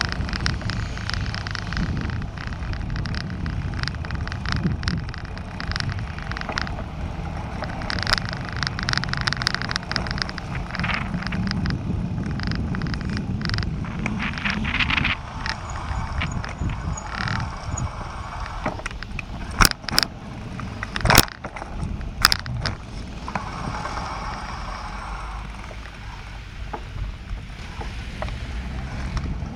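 Riding noise on a bicycle-mounted camera: a steady wind rumble on the microphone, with the bike rattling and ticking over the paving and passing road traffic. A few sharp knocks come about twenty to twenty-two seconds in.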